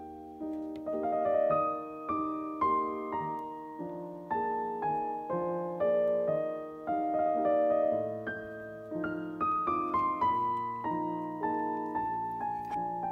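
Background piano music: a calm melody of struck notes, each ringing out and fading before the next.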